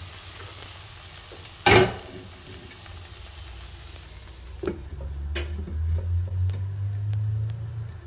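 Sliced broad beans frying in a non-stick wok with a faint sizzle while a spatula stirs and scrapes them. There is one loud clack about two seconds in and a few sharper clicks later. A low rumble grows louder from about five seconds in.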